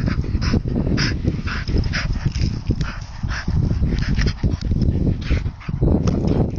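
Two Bedlington terriers play-fighting, making short high-pitched cries about twice a second over a steady low rumble.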